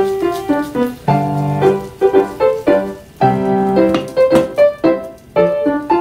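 Background piano music: a light melody of quick notes, with fuller held chords coming in about a second in and again about three seconds in.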